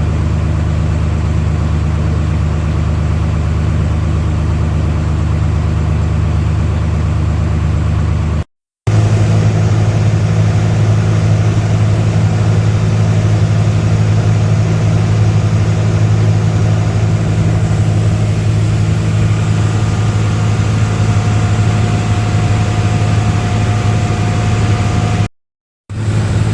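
Engine running steadily at a low, even pitch, heard in segments split by two abrupt cuts; after the first cut the pitch is slightly different and the sound a little louder.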